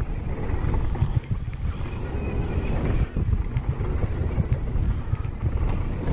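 Wind buffeting the camera microphone as a downhill mountain bike descends fast over a dry dirt trail. Beneath the wind, the tyres rumble on the dirt and the bike rattles with many small knocks over the bumps.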